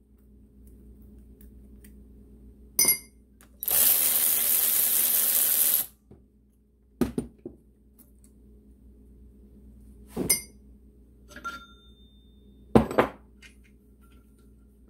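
Metal tools and engine parts clinking and knocking on a workbench, a few separate ringing clinks, with a loud steady hiss lasting about two seconds a few seconds in.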